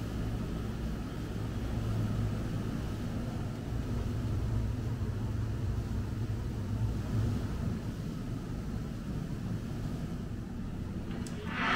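A steady low rumble with a faint even hiss above it.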